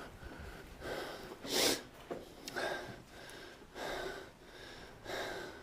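A person's breathing close to the microphone: about five short, noisy breaths or snorts roughly a second apart, the one about one and a half seconds in the loudest.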